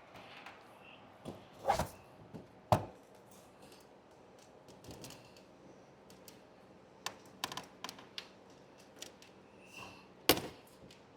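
Scattered sharp clicks and knocks of plastic trim as a car's front bumper cover is worked loose and pulled off. Three louder knocks come about 2, 3 and 10 seconds in, with a quick run of lighter clicks around 7 to 8 seconds.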